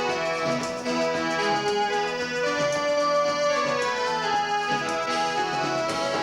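Dance band playing the instrumental break of a forró song: a lead melody of sustained notes on a keyboard-type instrument over a bass line and accompaniment, between sung verses.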